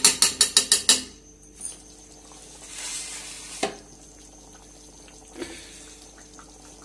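Metal spatula striking a metal pan in a quick run of about eight sharp clicks in the first second. The thick spinach gravy then simmers and bubbles, with a couple of single knocks from the pan.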